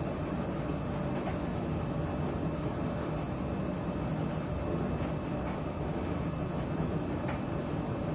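Vestel domestic laundry machine running with a steady low rumble and faint light ticks about once a second.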